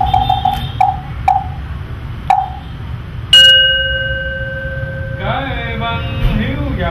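Buddhist wooden fish (mõ) struck in a short uneven run of knocks, followed a second later by one strike of a Buddhist bowl bell that rings on and fades. A monk's chanting begins about five seconds in.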